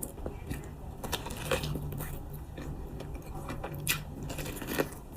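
Person eating soft durian flesh: wet chewing and mouth sounds with a few sharp clicks, the loudest about four seconds in and near the end.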